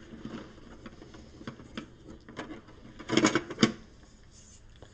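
Light clicks and clatter of plastic board-game pieces being handled in a plastic box insert, with a louder flurry of rattling about three seconds in.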